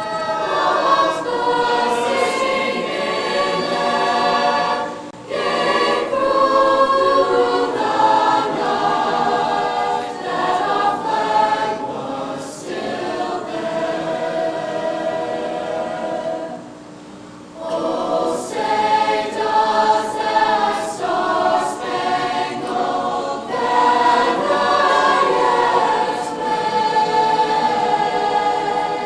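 A choir singing, with brief pauses between phrases about five seconds in and again around seventeen seconds.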